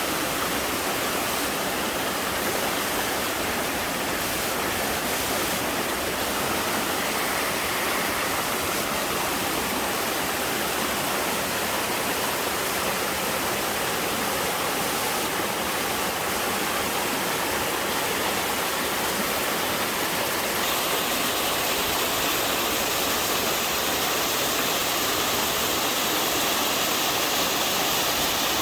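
Waterfall in a mountain valley: water pouring and splashing in a steady, dense rush. About twenty seconds in, the hissy top of the sound gets a little brighter.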